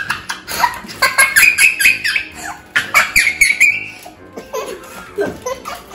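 Young girl laughing hard in a run of high-pitched laughs that tails off about four seconds in.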